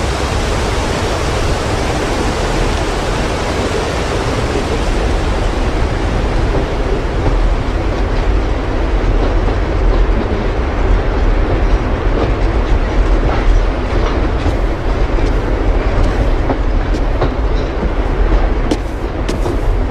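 Steady rumble of a moving train, with sharp clicks and clacks from the wheels scattered through the last several seconds.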